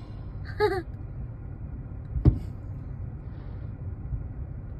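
A firework bursting with one sharp bang a couple of seconds in, over a steady low rumble of the crowd and the show. A brief voice exclamation is heard near the start.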